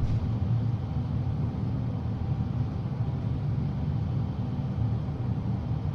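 Steady low rumble of continuous background machine noise, even throughout with no distinct events.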